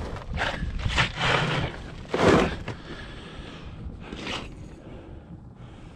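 Several irregular crunches and scrapes on snow-covered lake ice, the loudest about two seconds in.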